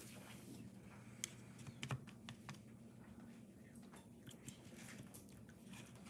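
Faint, scattered light clicks and taps of painting tools being handled and set down on the tabletop, in a few quick clusters, over a faint steady low hum.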